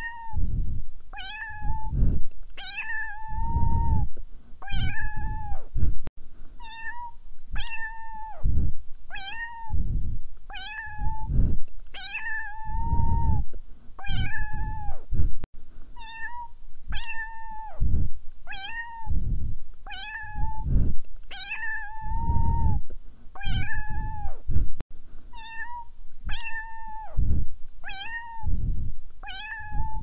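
A cat meowing over and over, about one call a second, mostly short meows with a few longer drawn-out ones. The same run of meows repeats about every nine seconds, as if looped.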